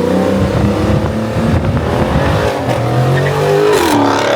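Cars accelerating at full throttle in a roll race. The engine pitch climbs, then drops at a gear change near the end.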